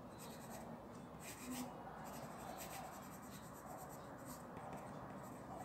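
Graphite pencil scratching on paper in a run of short, quick strokes as a signature is written; faint.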